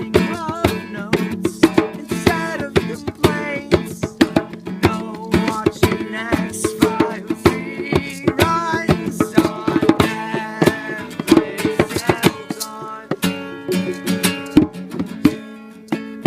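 Instrumental music: plucked strings, like a guitar, with percussion, rapid sharp note attacks over a steady low drone.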